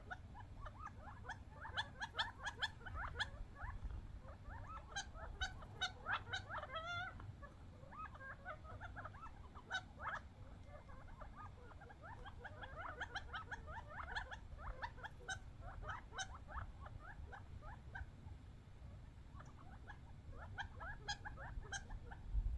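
Quail squabbling over seed: a dense chatter of short, squeaky chirps and twittering notes that comes in busy clusters, with a couple of quieter lulls in between.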